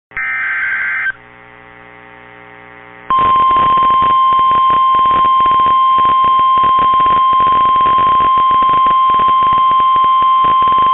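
NOAA Weather Radio alert broadcast: about a second of warbling SAME digital header data tones, a short gap of faint hum, then about three seconds in the steady 1050 Hz warning alarm tone sounds over radio static.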